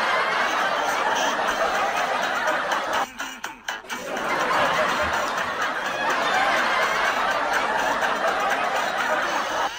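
People laughing: continuous snickering and chuckling, with a short drop-out about three seconds in.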